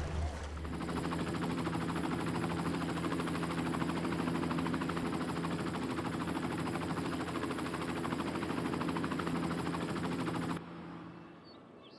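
A motor vehicle engine running steadily with a rapid, even pulsing. It cuts off abruptly near the end, leaving quieter outdoor ambience with a few faint chirps.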